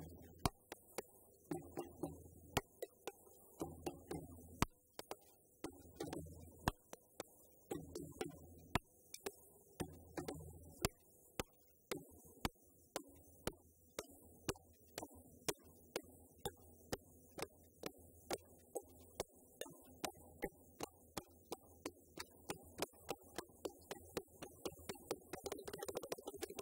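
Djembe drums played by hand in a steady rhythm of sharp slaps, about two to three a second, growing denser toward the end.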